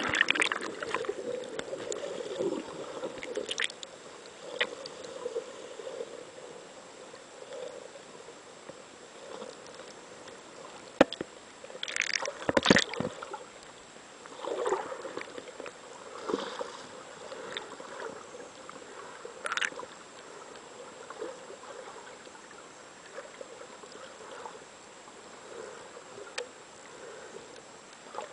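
Water sloshing and gurgling heard underwater, muffled, with irregular bursts of bubbles. There is a sharp click about midway and a louder flurry of knocks and splashing just after it.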